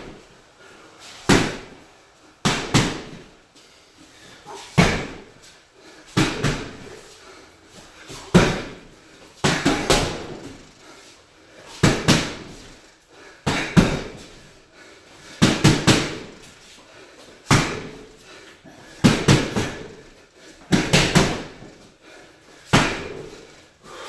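Boxing gloves punching a Title 3-in-1 wall-mount heavy bag: sharp smacks as single punches and quick combinations of two to four, every second or two.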